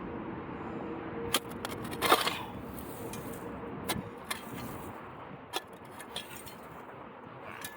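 A digging tool striking and scraping into the ground: a string of sharp, irregular knocks, the loudest about two seconds in with a short scrape after it, over a steady background rumble.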